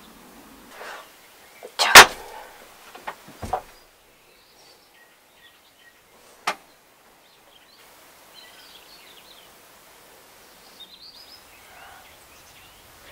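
Two sharp whooshes as an invisibility spell is cast: the first, about two seconds in, is the loudest, and the second comes a second and a half later. A single click follows mid-way, over faint high bird-like chirps.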